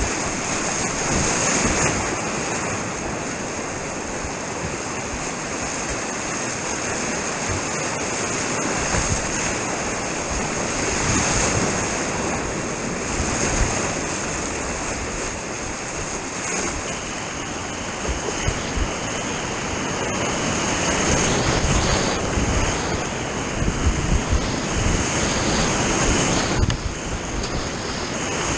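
Rushing white water of river rapids: a steady, loud noise.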